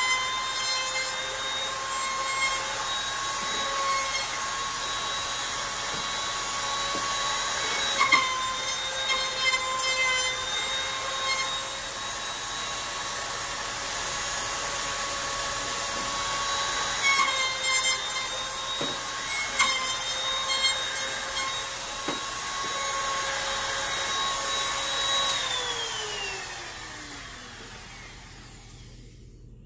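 Handheld wood router with a round-over bit running at a steady high whine while it rounds off the sharp edges of a 1.5 by 1.5 inch strip of scrap board, with a few sharper bursts as the bit bites into the wood. About 25 seconds in the router is switched off and its whine falls in pitch as it spins down.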